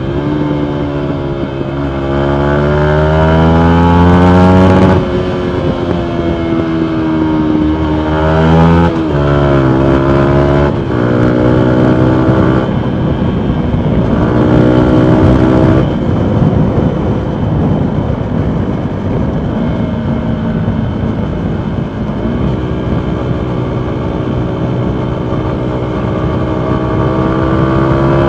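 2019 Yamaha MT125's single-cylinder 125 cc engine through a full Akrapovic exhaust, pulling hard several times with the pitch climbing and then falling sharply at each shift or throttle lift. After that comes a longer stretch of steadier, lower running that slowly rises again near the end.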